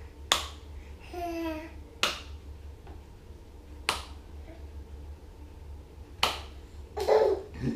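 An adult clapping his hands, about five single sharp claps one to two seconds apart. A baby gives a short vocal sound after the first clap and starts to laugh near the end.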